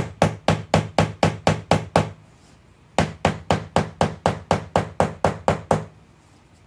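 Rapid knocking on a clear plastic bath bomb mold packed with mix, about four knocks a second in two runs with a pause of about a second between them. The knocking compacts the mix and frees it from the sides of the mold.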